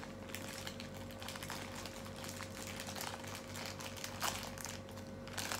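Small plastic packet crinkling and crackling as it is worked open by hand, in irregular light crackles over a faint steady hum.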